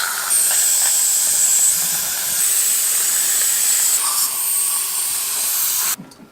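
Dental equipment giving off a loud, steady air hiss with a high, thin whine over it, which stops suddenly near the end.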